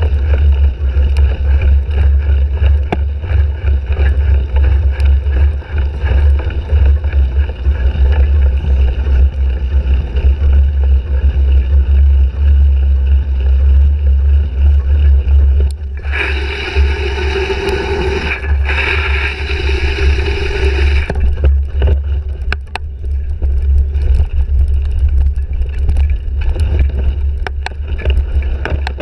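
Wind rumble on a bike-mounted action camera's microphone as a cyclocross bike is raced, with short rattles and knocks from the bike over rough ground. About sixteen seconds in, the rumble eases and a brighter hiss comes in for about five seconds.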